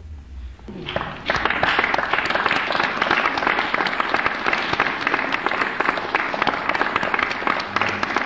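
The string orchestra's final chord dies away in the hall, and about a second in the concert audience breaks into applause, which continues steadily.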